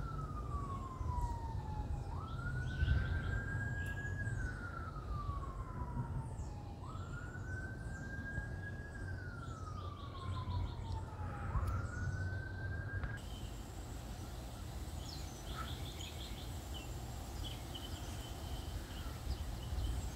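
A siren wailing, each cycle rising quickly, holding, then falling slowly, about every four to five seconds, over a steady low wind rumble with birds chirping. The siren stops about thirteen seconds in, leaving the wind rumble and birdsong.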